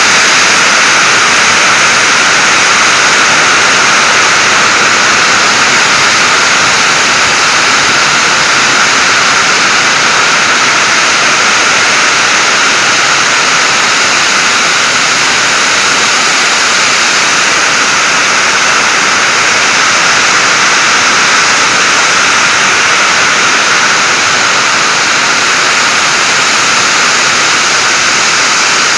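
Heavy hail and torrential rain pounding a sheet-metal shed roof and the ground in a loud, dense, unbroken roar.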